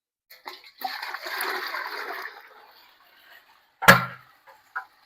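Water splashing and pouring out for about a second and a half, then tapering off: water being flushed through a tractor radiator. Near the end comes one sharp clunk.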